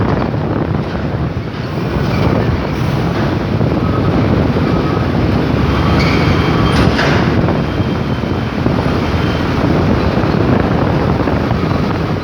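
Road noise from vehicles moving at speed: a steady rumble of engines, tyres and wind.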